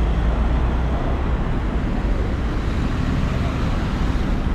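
Jammed city street traffic: car engines running close by in a steady low rumble.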